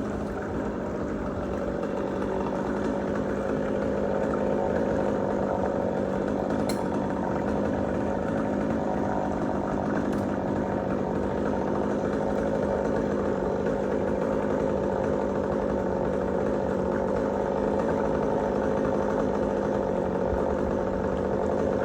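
An engine running steadily at a constant speed, its level rising slightly over the first few seconds.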